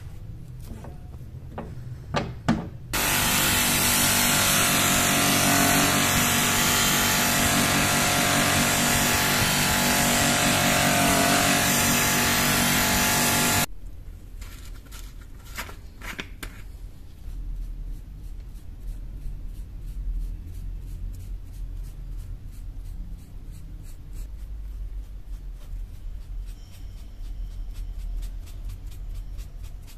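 A loud, steady rushing hiss with a faint steady tone in it starts suddenly about three seconds in and cuts off after about ten seconds. Then a plastic bottle cap is unscrewed with a few clicks, and a small brush dabs and rubs liquid onto a steel knife blade in quick, soft strokes.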